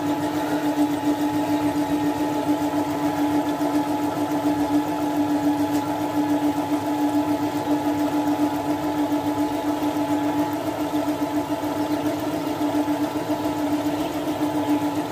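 Singer MF-201EX mini sewing machine running steadily at one speed as it sews a picot edging stitch, its small electric motor giving a constant hum.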